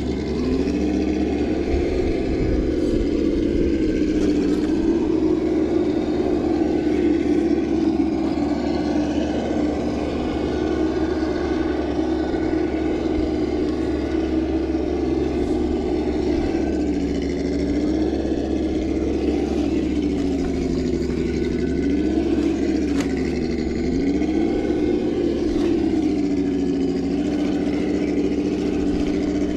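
Electric motor and gears of a Traxxas TRX-4 Land Rover Defender radio-controlled crawler whining steadily as it climbs over rocks. The pitch sags and recovers several times in the second half as the motor is loaded and eased.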